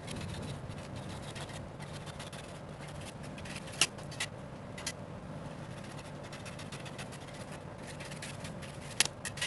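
A few sharp taps and clicks as a red wax candle is cut into pieces with a knife on newspaper. The loudest come about four seconds in and near the end, over a steady low background hum.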